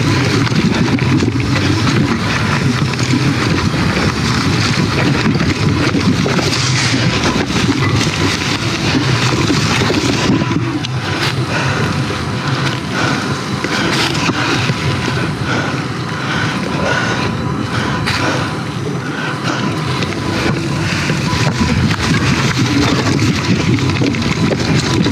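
Mountain bike riding along a dirt trail: a steady rumble and rattle from the tyres and bike, with wind noise on the microphone.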